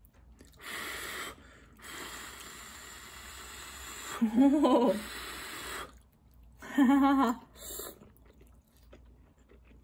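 A person eating spaghetti with chopsticks: slurping and chewing noises, with two short hummed vocal sounds about four and seven seconds in.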